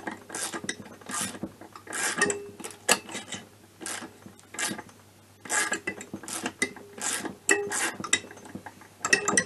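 Ratchet clicking in short, irregular runs as a stud-setting tool drives a cylinder stud into a scooter engine crankcase. The tool, a bit big for the small engine, rubs a little against the case.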